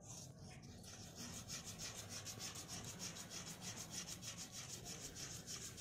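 A piece of sandalwood rubbed against a wet stone slab in quick, even strokes, grinding it down into sandalwood paste.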